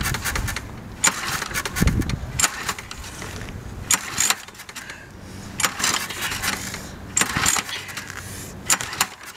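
Walk-behind lawn mower engine being cranked by its pull-cord recoil starter: about six short rasping pulls, roughly one every second and a half. The engine turns over without catching.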